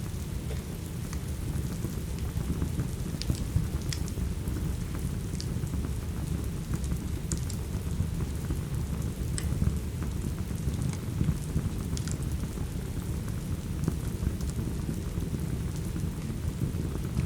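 Steady rain over a deep, even rumble, with scattered sharp pops of a crackling wood fire every second or two.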